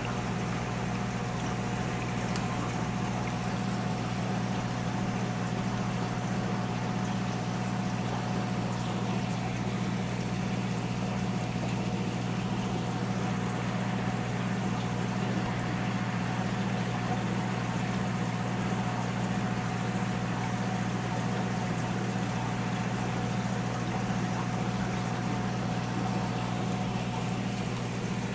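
Aquarium pump running with a steady, even hum, with water bubbling in the tank.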